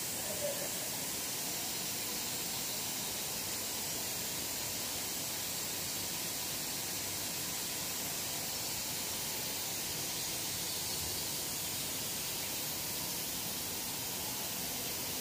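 Steady, even hiss of a biscuit production line's machinery running in a factory hall, with a couple of faint small knocks just after the start.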